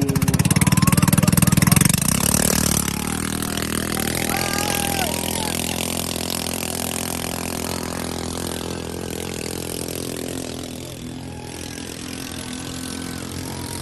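Motorbike engine revving hard for about two seconds, then running steadily at lower revs and slowly fading.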